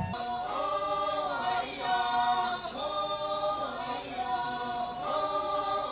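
A group of Naga tribal dancers singing together unaccompanied, a chant-like folk song in short repeated phrases about a second each.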